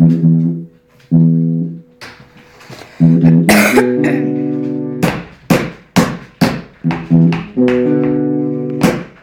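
Guitar chords strummed: a few single chords left to ring in the first three seconds, then a steady rhythm of strums about two a second.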